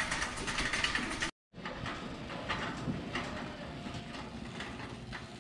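Busy store ambience with a shopping cart rolling and rattling. The sound cuts out completely for a moment about a second in.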